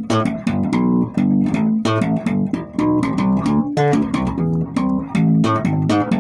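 Electric bass guitar played solo, a quick run of plucked notes, about three to four a second, each with a sharp, bright attack.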